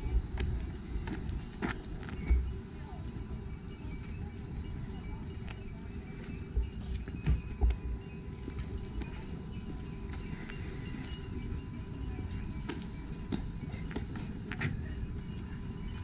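Steady, high-pitched insect chorus. A few dull low thumps come through now and then, the loudest about two seconds in and around seven seconds in.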